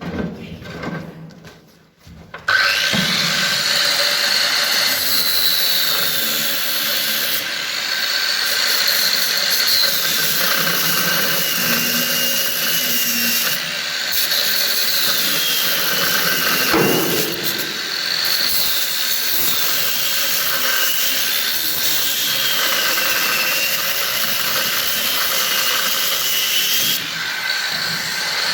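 A handheld power tool starts about two and a half seconds in and runs continuously, a loud noisy whine whose pitch sags and recovers several times as it is loaded against the work, then holds steady near the end. A few knocks come before it starts.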